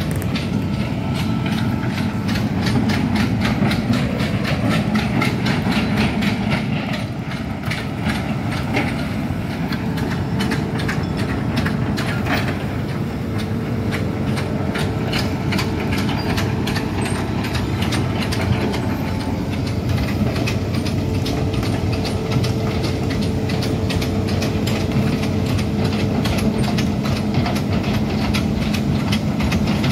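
Hitachi Zaxis 210F amphibious excavator travelling on its pontoon tracks: the diesel engine runs steadily under a rapid, even clatter of the track chains.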